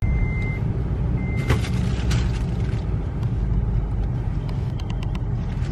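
Steady low rumble inside a stationary car, with two short electronic beeps within the first second and a half and a few light clicks.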